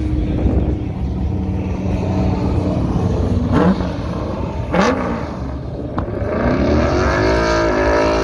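Car engine running with a steady low rumble, giving two quick sharp revs about halfway through, then accelerating with its pitch climbing near the end.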